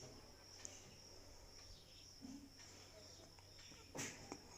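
Near silence with faint, steady high-pitched cricket chirring, and one short noise about four seconds in.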